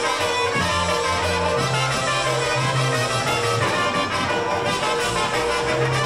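Live polka band playing, trumpets and other brass leading over a bass line of steady notes.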